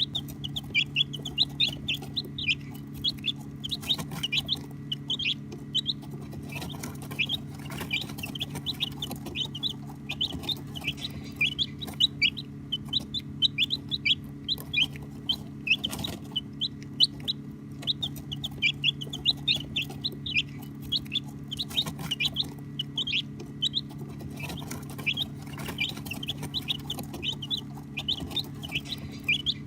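Baby chicks chirping: a constant stream of short, high peeps that drop in pitch, several a second from many birds at once, over a steady low hum.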